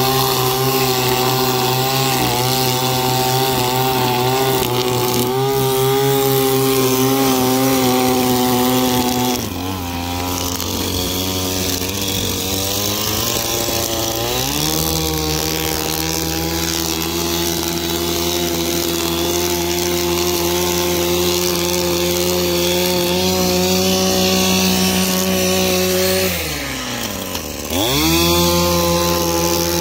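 Echo string trimmer's two-stroke engine running at high revs while cutting grass short. About a third of the way in it eases off to a lower speed for several seconds, then revs back up. Near the end it drops almost to idle and quickly revs up again.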